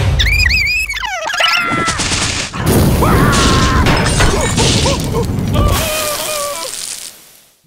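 Cartoon sound effects: a high squealing cartoon scream over a low rumble, then a long, loud blast-like rush of noise with a wailing cartoon voice over it, fading out near the end.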